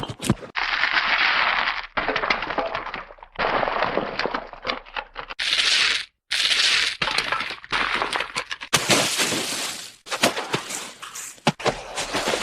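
A run of cartoon sound-effect crashes played one after another, about half a dozen in all. They sound like glass breaking and smashing, each a second or two long with tinkling debris, separated by short gaps.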